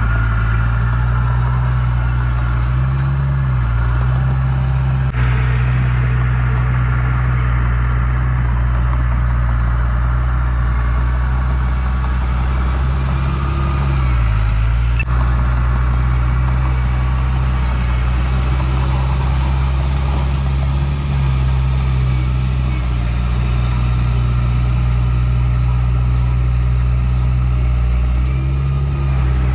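Heavy diesel engine of earthmoving equipment running steadily under a low, loud hum, its pitch dipping briefly about three seconds in, again near the middle and once more near the end.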